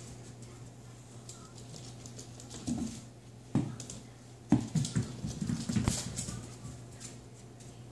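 Pomeranian puppy playing with a ball on tile and hardwood floor: scattered paw patter and scuffling, with a few sharp knocks, the loudest about three and a half and four and a half seconds in. A steady low hum runs underneath.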